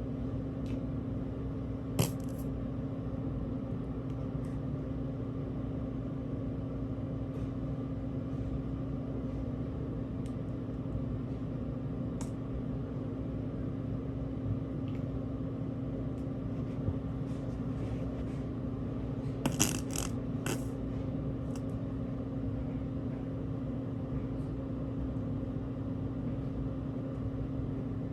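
A steady machine hum with one constant low tone, broken by a sharp click about two seconds in and a quick cluster of two or three clicks about two-thirds of the way through.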